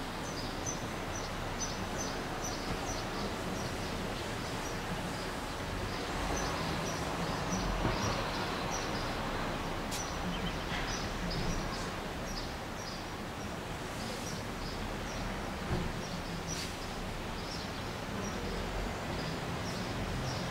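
Steady outdoor background noise with a low rumble, over which small birds chirp briefly again and again; the background swells for a few seconds near the middle.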